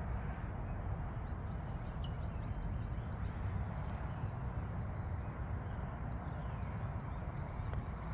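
Outdoor ambience: a steady low rumble with small birds chirping faintly, including one short high call about two seconds in.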